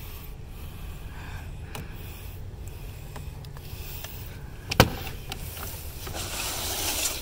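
A single sharp knock about five seconds in, over a steady low hum and faint rustling that grows louder near the end.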